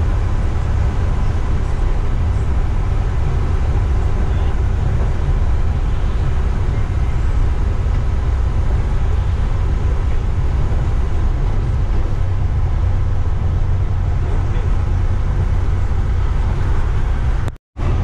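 Steady cabin drone of a coach driving at highway speed: engine and road noise with a heavy low rumble. It cuts out suddenly for a moment near the end.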